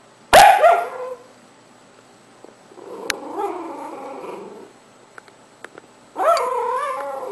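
Sleeping puppy vocalizing in its sleep while dreaming: a sudden sharp yip about half a second in, a quieter, lower whimpering grumble in the middle, and a drawn-out whine near the end.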